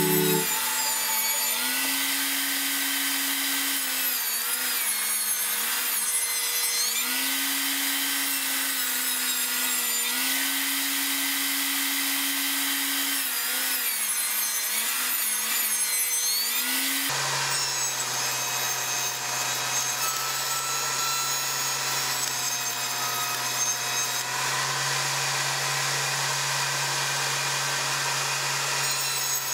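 Table saw running and cutting through an end-grain zebrawood panel, its whine dipping and recovering as the wood is fed into the blade. The sound changes abruptly about two-thirds of the way through and carries on steadily.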